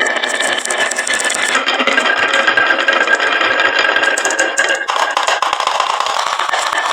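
Many marbles rolling and clattering down a wooden marble-run slope, a dense continuous rattle of small clicks with a ringing rolling tone. The mix changes abruptly about a second and a half in and again near five seconds.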